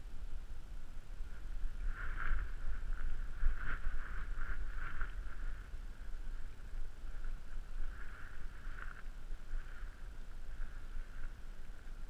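Low rumbling wind and movement noise on a camera worn by a dog, under a steady high hum that swells in a run of pulses about two to five seconds in and again around eight seconds.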